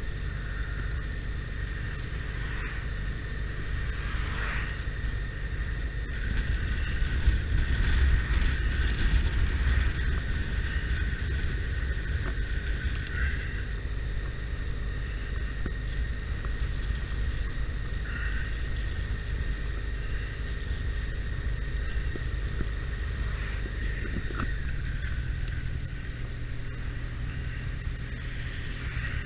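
Motorcycle running under way, a steady low rumble of engine and wind. It grows louder for a few seconds about a quarter of the way in, then settles.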